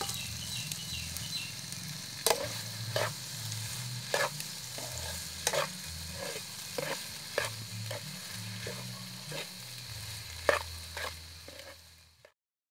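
Macaroni and vegetables sizzling in a frying pan while a spatula stirs them, scraping and knocking against the pan about once every two-thirds of a second. The sound cuts off abruptly near the end.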